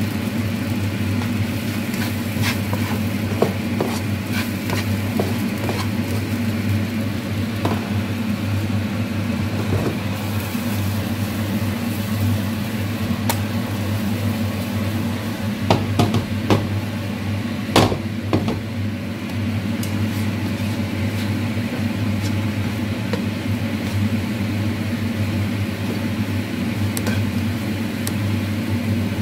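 Eggs sizzling in hot oil in a non-stick pan while they are scrambled with a spatula, which scrapes and taps against the pan now and then, with a cluster of louder taps about two-thirds of the way through. A steady low hum runs underneath.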